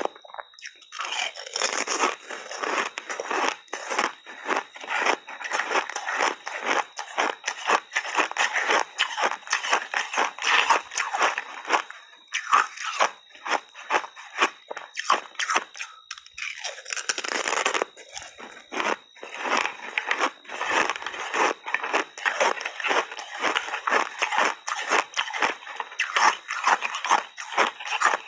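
Thin ice chips coated in milk and matcha powder being chewed close to the microphone: rapid, dense crunching and crackling, with a couple of brief lulls. A faint steady high whine runs underneath.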